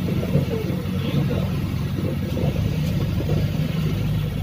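Vehicle engine running steadily, a low drone heard from inside the cabin while driving.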